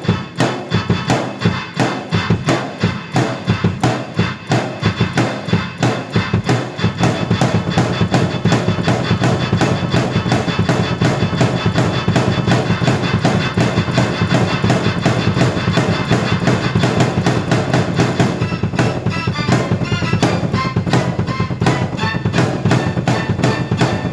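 Drum kit and keyboard played together in a steady beat. The sound fills out with a continuous low part about seven seconds in, and more high keyboard notes come in about nineteen seconds in.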